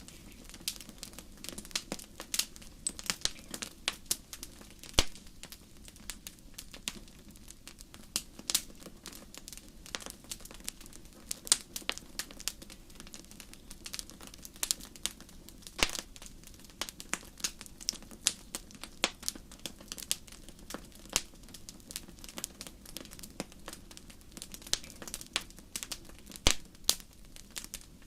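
Wood fire burning on a metal grate in a fireplace, crackling steadily with many irregular sharp pops, a few louder than the rest, over a soft low rush.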